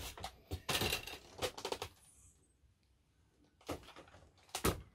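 A boxed blind being handled: a quick run of small knocks and rustles from the cardboard packaging for about two seconds, a pause, then a couple more knocks near the end.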